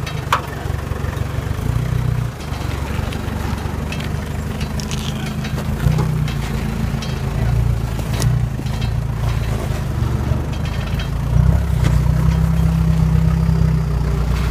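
Toyota Hilux engine running at low revs as the truck crawls over rocks, the revs picking up about six seconds in and again a few seconds before the end. A couple of sharp knocks stand out above it.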